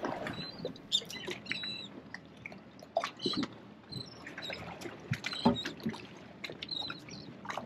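Seabirds calling in short, squeaky high chirps, mixed with scattered clicks and knocks.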